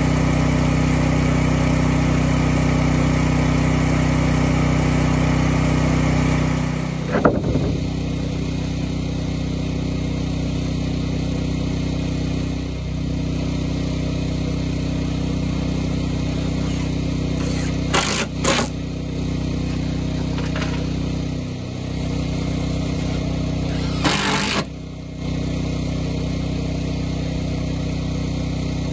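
Snapper portable generator's engine running steadily, loud and close for the first seven seconds, then a little farther off. Over it, a cordless drill drives screws into plywood decking in short bursts, twice about two-thirds of the way through and once for about a second near the end.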